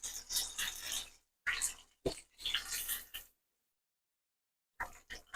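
Chicken pieces deep-frying in hot oil, sizzling in uneven spurts with short silent gaps between them.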